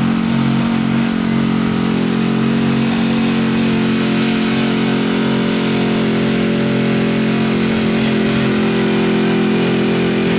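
Chevrolet square-body pickup's engine held at high, steady revs under heavy load as it drags a weight-transfer sled across dirt. It runs loud at a constant pitch throughout.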